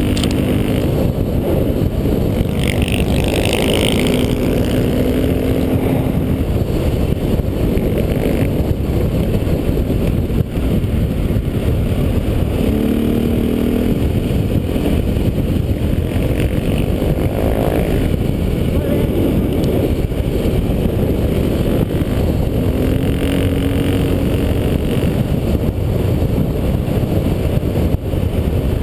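Dirt bike engine running at speed on a gravel road, heard from the bike itself under a thick rumble of wind and road noise; the engine note rises and falls briefly now and then.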